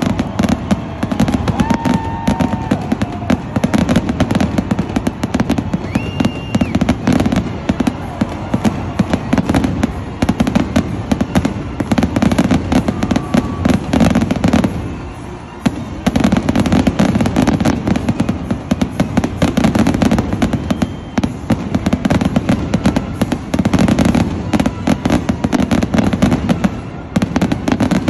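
Fireworks finale: a dense, continuous barrage of aerial shells bursting and crackling, with a brief lull about halfway through.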